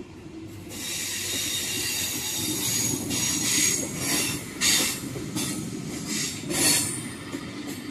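Trenitalia regional passenger train of coaches running through the station. The wheels rumble on the rails, and a high screeching hiss from the running gear rises and falls in several surges.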